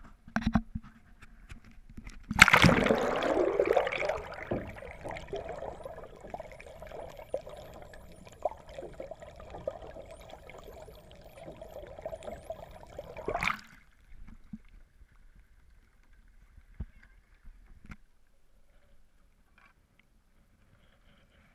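A camera plunges into the sea with a loud splash about two seconds in, then picks up muffled underwater rushing and bubbling water beside the canoe hull for about eleven seconds. The sound cuts off abruptly as it comes back out of the water, leaving only faint water sounds that fade almost to silence.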